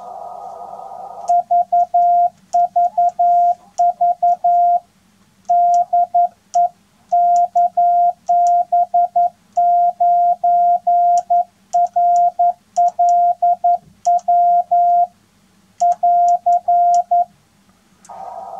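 Morse code sent on a 3D-printed wrist-mounted micro paddle, whose flexing PLA arms give a soft touch. It is heard as a steady high keyed tone in dits and dahs, in groups with short pauses, with faint clicks from the paddle. A narrow band of hiss stops about a second in, just before the sending starts.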